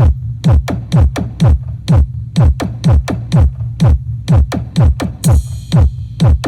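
Electronic dance music played loud through a mobile disco sound system during a soundcheck: a deep kick drum about twice a second, each kick dropping in pitch, over a steady bass note. A short hissing cymbal wash comes in near the end.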